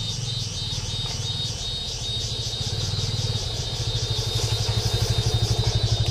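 A motorcycle engine running as the bike rides up close, growing louder in a rapid pulsing beat towards the end and cutting off abruptly. Insects chirp steadily at a high pitch behind it.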